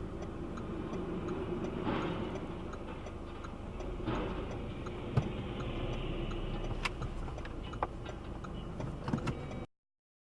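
Dashcam recording inside a car: a low steady engine and road rumble with a faint regular ticking at about two ticks a second. A few sharp knocks come in the second half, the loudest about five seconds in, and the sound cuts off just before the end.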